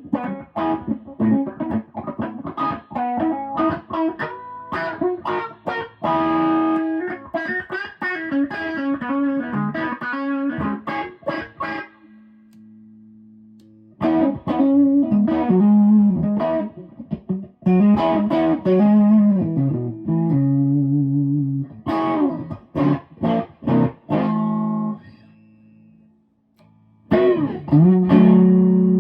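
High Water Guitars Miracle electric guitar played through an amplifier: quick picked single-note lines and chords, a held note left to fade about twelve seconds in, a short pause near the end, then a chord struck and left ringing.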